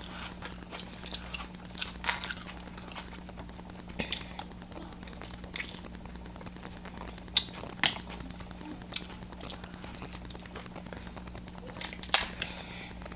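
Crab leg shell being cracked and picked apart by hand, with chewing of the crab meat: a scatter of sharp cracks and clicks, the loudest pair about twelve seconds in, over a faint steady low hum.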